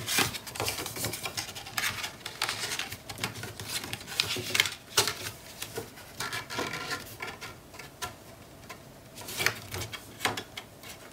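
Cardstock and paper being handled on a cutting mat: irregular light rustling, sliding and tapping as flaps are lined up and pressed down, with a quieter spell about two-thirds of the way through.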